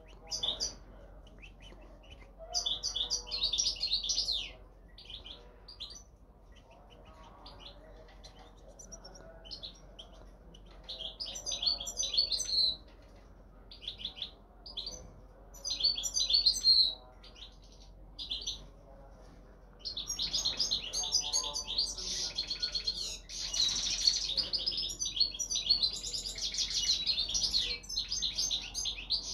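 European goldfinch of the parva race singing: rapid, liquid twittering phrases with short pauses between them, then almost unbroken song through the last third.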